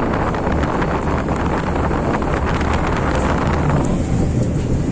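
Tatra T3 tram running, heard from inside the car: a steady low rumble of wheels on rails with rattling and clatter, the higher clatter easing off about four seconds in.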